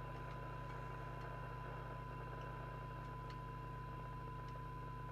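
Receiver audio from a President Walker ASC CB radio: a steady 1 kHz test tone from a signal generator, set at the weakest usable signal so that it sits in hiss, over a steady low hum and a few faint ticks. It is the weak-signal test tone used to peak the receiver's coils for best SINAD during alignment.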